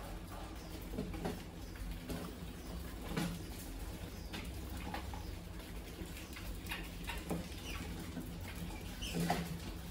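A crowd of wild mice in and around a glass box trap, squeaking and scrabbling: scattered short squeaks and light scratching and tapping over a steady low hum.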